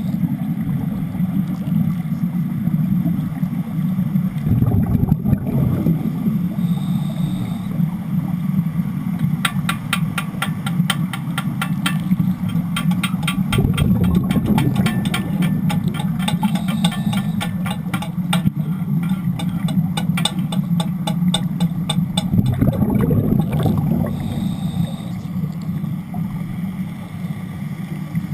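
Underwater wet stick welding with Broco rods: a steady low rumble of bubbles and gas with louder swells about every nine seconds. From about ten seconds in to about twenty-two seconds there is a fast crackle of clicks, roughly five a second.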